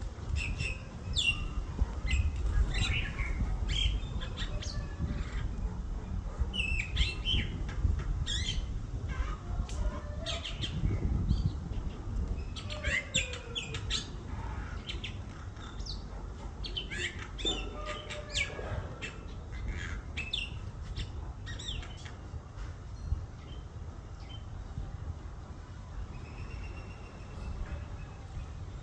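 Young myna giving short, harsh squawks and chirps in quick clusters, thinning out in the last few seconds, over a steady low rumble.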